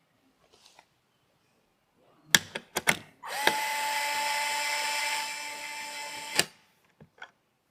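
A few sharp clicks, then a small electric screwdriver runs at a steady pitch for about three seconds and stops with a click.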